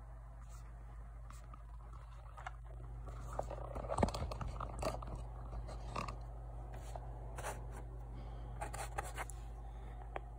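Light clicks, scrapes and rustles of small objects being handled, busiest a few seconds in and again near the end, over a steady low hum.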